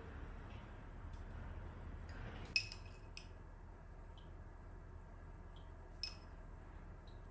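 Two sharp, ringing clinks of glass or china kitchenware, about three and a half seconds apart, with a lighter tap just after the first.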